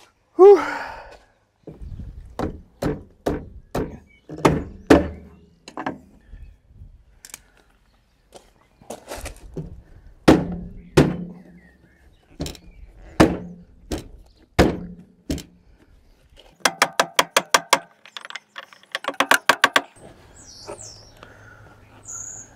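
Repeated hollow thunks and knocks as the plastic front bumper of a VW T4 van is worked and jolted forward to slide it off its mounting brackets, with a short squeal about half a second in. Near the end come two quick runs of rattling clicks, a second or so apart.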